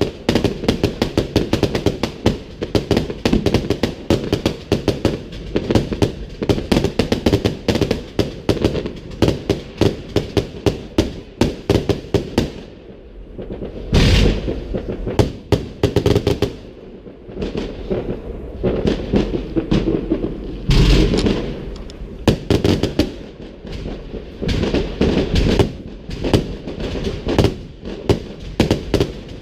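Fireworks going off in a dense, rapid crackle of sharp bangs, with heavier booms about halfway through and again about two-thirds of the way in.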